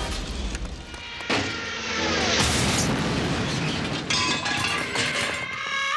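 Cartoon sound effects: a dense, noisy din with booms, with sharp hits about a second and two and a half seconds in, over background music.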